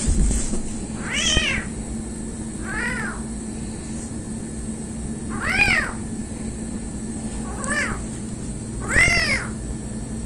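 Small kitten meowing repeatedly, about five high calls a couple of seconds apart, each rising and then falling in pitch, over a steady low hum.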